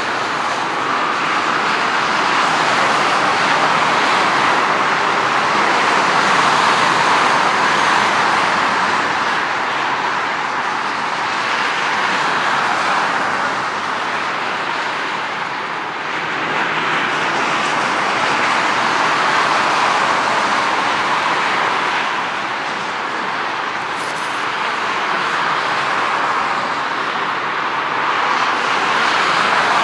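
Avro RJ100 regional jet's four Honeywell LF507 turbofans running at low ground power as the aircraft taxis, a steady jet rush that swells and fades slowly.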